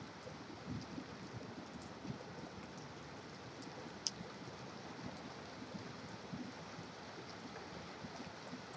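Rain falling with distant highway traffic, a steady hiss, with scattered small drip ticks and one sharper tick about four seconds in.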